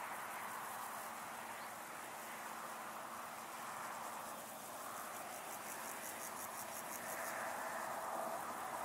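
An insect stridulating in rapid, high-pitched pulses over a steady background hiss; the pulsing stops about seven seconds in.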